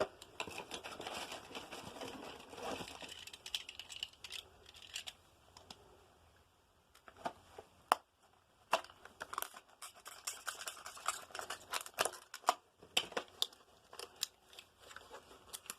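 Close handling noises: crinkling and rustling, then scattered sharp clicks and taps at irregular intervals, with a distinct click about eight seconds in.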